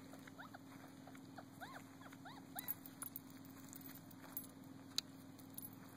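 Faint animal chirps: a run of short squeaky calls, each rising and falling in pitch, over the first three seconds, then a single sharp click about five seconds in.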